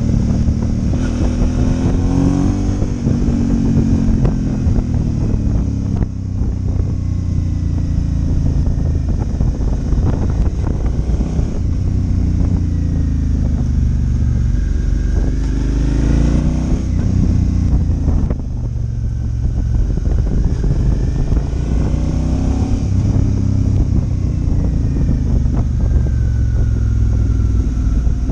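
Suzuki V-Strom 650's V-twin engine under way, its pitch rising and falling again and again as the rider accelerates and eases off, over a steady low rumble of wind on the microphone.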